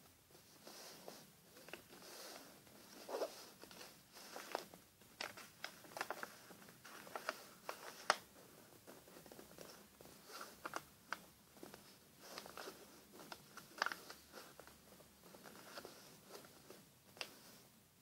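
A sheet of paper being folded and creased by hand: soft rustling and sliding, with irregular sharp crinkles and clicks as the folds are pressed flat, the sharpest about eight seconds in.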